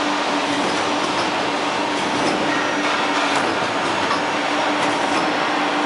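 Steady noise of suspended hydraulic riveting machines working on a steel vehicle chassis frame: a constant low hum under a broad hiss, with a few faint metallic knocks.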